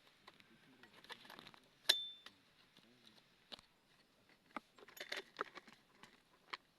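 Scattered metallic clicks and clinks of a spanner and metal chainsaw parts being handled, with one sharp clink about two seconds in that rings briefly.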